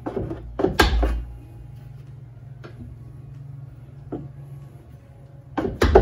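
Metal knocks and clanks from wrenching a front strut bolt loose, with a 17 mm combination wrench held on the nut: one short cluster about a second in, a couple of faint ticks, then another loud cluster near the end.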